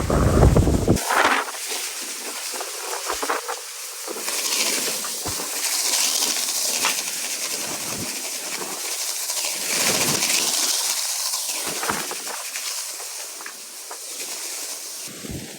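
Wind-driven fire burning through a house: a hissing rush that swells and fades in gusts, with scattered crackles and pops. Heavy wind buffeting on the microphone in the first second stops abruptly.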